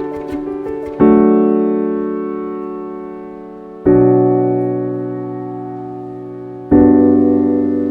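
Background music: slow piano chords, each struck and left ringing as it fades, with a new chord about every three seconds.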